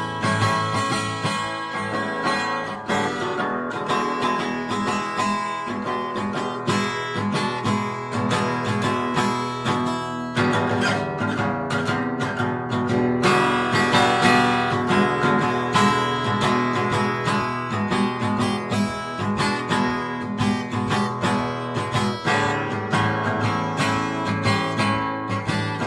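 Acoustic guitar played as an instrumental blues piece, with picked notes and strummed chords.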